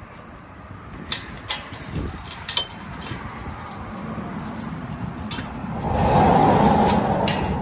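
Keys jangling and clicking against the lock of a metal security gate, several sharp clicks in the first few seconds. About six seconds in comes a louder scraping rush lasting a second or so as the barred gate is pulled open.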